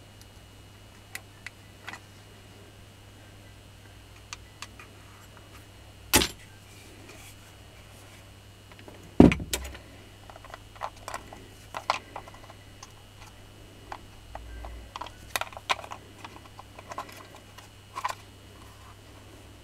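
Scattered clicks, taps and knocks of a Makita hammer drill's housing and small metal parts being handled during disassembly, with two sharp knocks about six and nine seconds in, the second the loudest.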